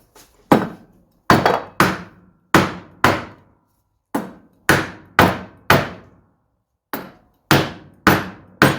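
Hammer blows on an engine case, knocking out a crank bearing: about thirteen sharp strikes with a short ring after each, in groups of three to four at roughly two a second.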